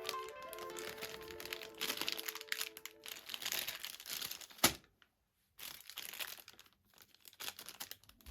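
Packaging being handled and unwrapped, crinkling and rustling, with one sharp click about four and a half seconds in. Background music plays over the first few seconds.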